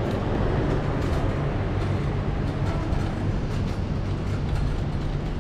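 Metal shopping cart rolling over a hard store floor: its wheels rumble steadily, with light clicks and rattles from the loaded wire basket.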